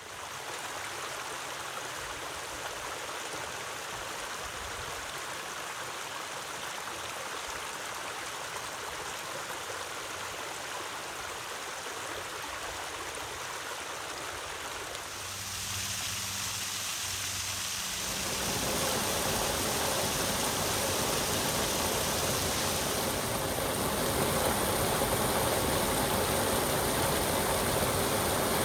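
Running water in a stream, a steady rushing and gurgling. About halfway through it grows louder and fuller, with more low rumble.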